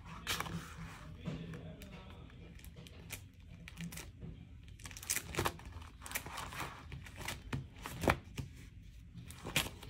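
Paper sticker sheets rustling and crinkling as they are shuffled and handled, with a few short sharp crackles scattered through.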